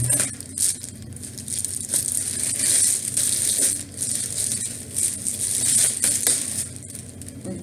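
Clear plastic wrapping crinkling and rustling in several surges as a laptop is slid out of its plastic sleeve.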